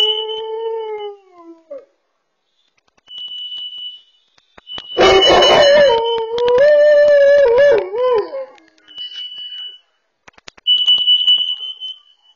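A bullmastiff howls along to a carbon monoxide alarm that is going off. The alarm gives repeated high, steady beeps. There are two long, wavering howls: the first falls away in the opening two seconds, and the second starts about five seconds in with a loud, rough outburst.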